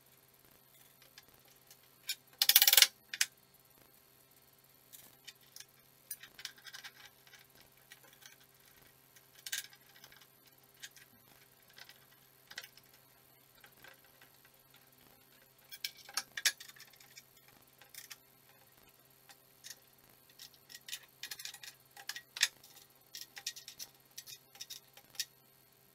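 Steel square-tube go-kart frame pieces clinking and knocking against each other and the plywood board as they are handled and fitted together, in scattered light clicks with one louder, longer clatter about two and a half seconds in.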